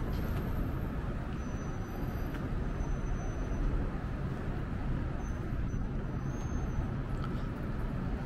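Downtown street traffic: a steady low rumble of passing vehicles.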